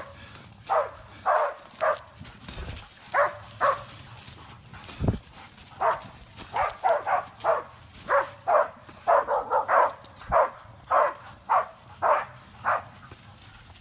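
Hunting dog barking in short, sharp barks at a wild boar during a boar hunt, in irregular runs that come quicker from about six seconds in.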